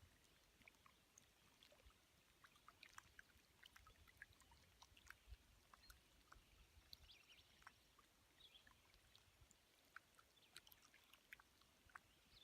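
Near silence: faint outdoor ambience with scattered small ticks and clicks.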